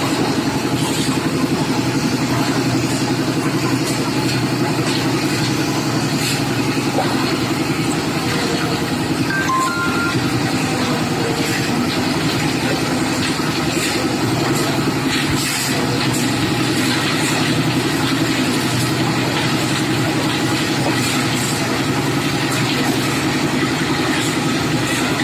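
Engine of a concrete mixer running steadily, with faint scattered clicks and knocks over it.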